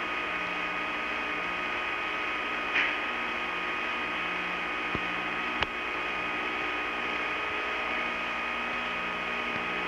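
Steady background hum and hiss with several constant tones, the kind of drone a spacecraft cabin's fans or an old recording would give, with two faint clicks about half a second apart near the middle.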